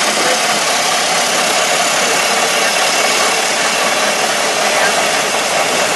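Ford Model T's four-cylinder engine running as the car drives along, heard on board under a steady rush of wind and road noise.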